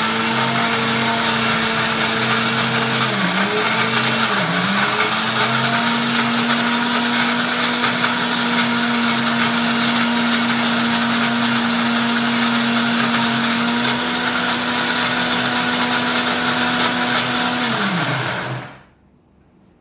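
Countertop blender motor running steadily as it blends pancake batter of oats, banana, egg and yogurt. Its pitch dips briefly twice, about three and four and a half seconds in, and near the end it winds down with a falling pitch and stops.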